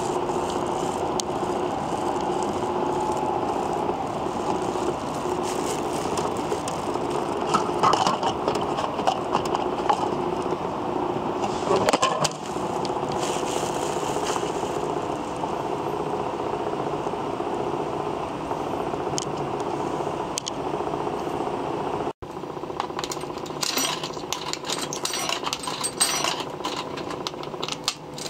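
A steady mechanical hum with a low held tone over background noise. After a break near the end come scattered light clicks and clinks.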